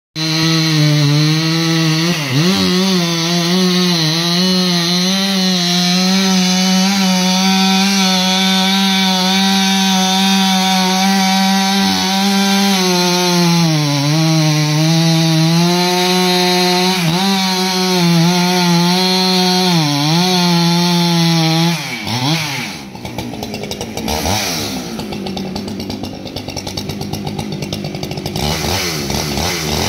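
Husqvarna 395XP two-stroke chainsaw running at full throttle as it cuts into a large tree trunk, its pitch dipping briefly several times as the chain bogs down in the cut. About 22 seconds in the throttle drops and the engine runs lower and unevenly for several seconds, then revs back up near the end.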